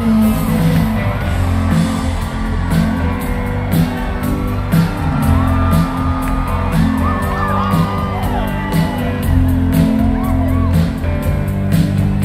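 Live rock band playing on stage, heard from the audience: a steady beat with cymbal or hi-hat ticks, a driving bass line, and sliding melodic lines above it.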